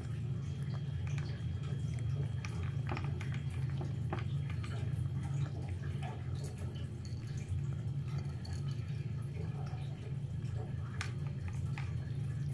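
A cat eating wet tuna-in-jelly cat food from a plastic bowl, with small wet smacking and licking clicks scattered throughout. A steady low hum runs under it.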